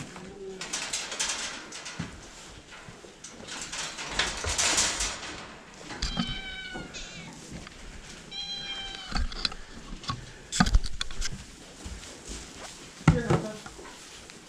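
An animal gives two short, high cries about two seconds apart, between bouts of rustling, with a couple of sharp knocks later.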